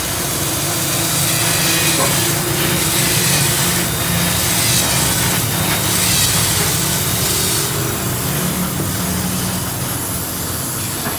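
Corded electric drill boring down into the end of a turned wooden post: the motor runs steadily under load with a rough cutting noise from the bit in the wood. About three-quarters of the way through the cutting noise drops away as the bit comes out, and the motor keeps running.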